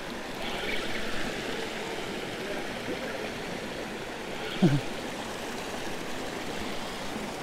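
Steady rush of a shallow river running over a low rocky cascade. About four and a half seconds in, a brief loud sound with a falling pitch stands out over the water.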